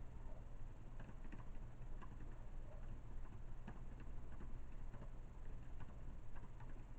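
Faint, irregular keystrokes on a computer keyboard, starting about a second in, over a steady low electrical hum.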